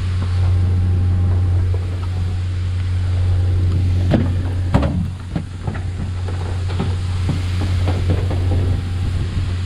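Fishing boat's engine running steadily with a low hum, under the hiss of the deck sprinklers spraying water onto the sea. A run of sharp knocks comes about four to eight seconds in.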